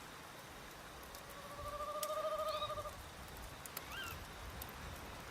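Nature soundscape: a wood fire crackling with scattered sharp pops, while an owl gives one long wavering trill of about two seconds from about a second in. A short rising chirp follows near the four-second mark.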